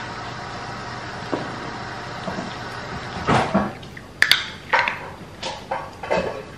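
Shetland sheepdog puppy eating from a ceramic bowl. From about three seconds in comes an irregular run of crunches and clinks of food against the bowl, over a steady low hum.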